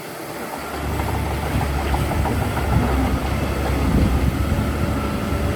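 Heavy diesel engine of construction machinery running steadily, a low rumble after a brief drop-out at the very start.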